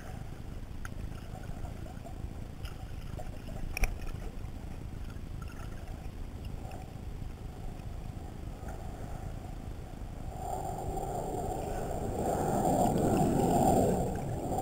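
Muffled underwater sound picked up by a GoPro in its waterproof housing: a steady low rumble with scattered small clicks and one sharper click about four seconds in. From about ten seconds in, a louder rushing of moving water builds up.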